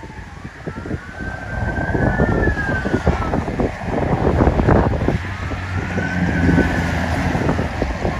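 A siren wailing, its pitch rising and falling slowly twice, under wind buffeting the microphone.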